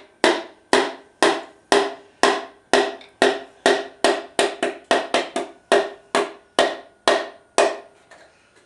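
Wooden hammer knocking a piston down its cylinder bore in a Ford 390 FE V8 block: steady knocks, about two a second, each ringing briefly. The knocking stops about seven and a half seconds in, with a couple of faint taps after.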